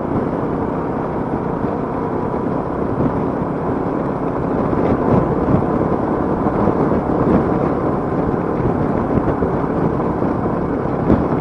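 Royal Enfield Meteor 350's single-cylinder engine running at a steady cruise, with wind rushing and buffeting over the microphone that grows gustier a few seconds in.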